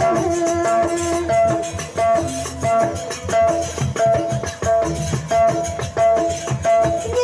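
Instrumental passage of Lombok rudat music: a short melodic figure repeating about twice a second over drums and shaken percussion, with no singing.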